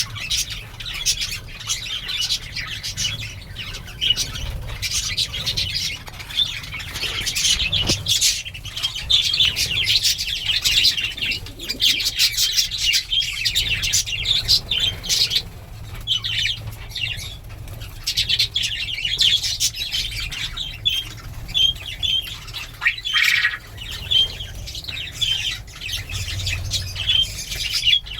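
A flock of small pet birds chirping and calling nonstop, with frequent wing flaps.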